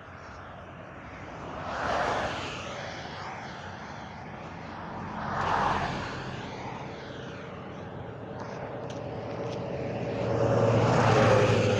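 Road traffic passing close by: vehicles go past with a swell of tyre and engine noise about two seconds in and again around the middle. Near the end a louder vehicle with a steady engine drone approaches.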